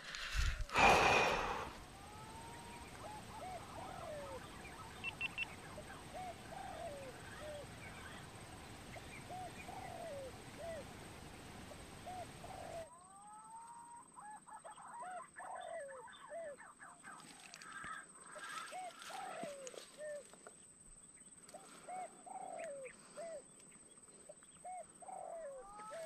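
Green pigeons (punai) calling: a long series of short, arched whistled notes repeating about once a second. A brief loud rustling sounds about a second in.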